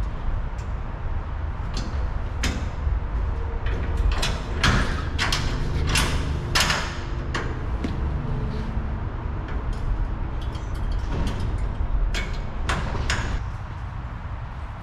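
Clanking and rattling of metal, with short squeaks, over a steady low rumble: a trailer being handled and moved into place for hitching. The knocks come thickest about halfway through and ease off near the end.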